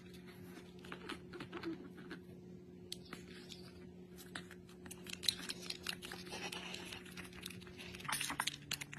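A small puppy eating soft porridge: faint, wet licking and smacking clicks, coming thicker in the second half, over a faint steady hum.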